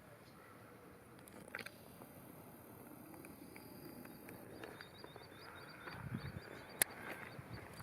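Faint outdoor ambience with a quick run of high, thin chirps through the second half and a few soft low knocks and a click near the end.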